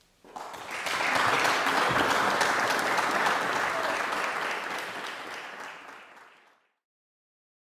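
Audience applauding: the clapping starts suddenly, swells within a second, then fades out over the last couple of seconds.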